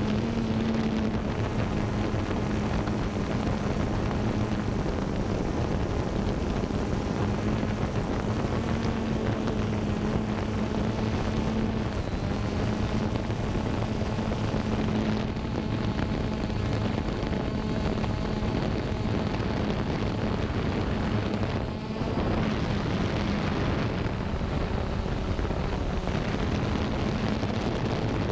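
Xiro Xplorer G quadcopter's motors and propellers humming steadily in flight, heard from the GoPro it carries. The pitch rises and falls slightly as it manoeuvres, with a brief drop in level about three-quarters of the way through.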